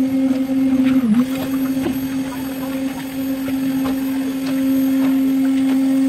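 A machine motor running steadily with a low hum, dipping briefly in pitch about a second in, with a few faint clinks of shovels on iron pans.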